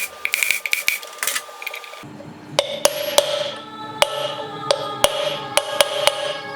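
Background music, with a change about two seconds in, and sharp, irregular knocks over it.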